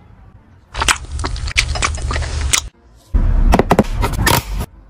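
Two bursts of crackling and crunching from hands handling food and its thin plastic packaging, starting about a second in and again past the three-second mark.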